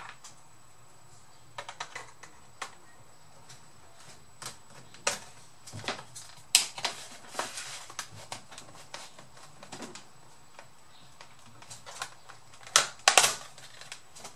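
Irregular clicks and taps of hands and a plastic pry tool against a Dell Vostro 3550 laptop's plastic bottom cover as it is worked loose. Near the end, a quick run of louder snaps as the cover comes free.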